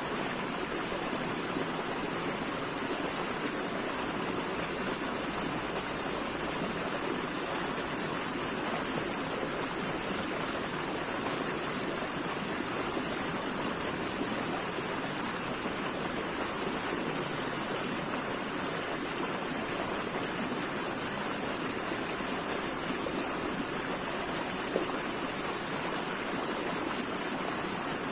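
Flowing water running steadily, an even unbroken rush with no change in level.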